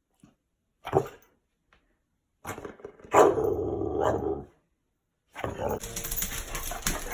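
A dog barking and growling: a short sound about a second in, a longer pitched one from about two and a half to four and a half seconds, and a busier stretch of sound from about five seconds on.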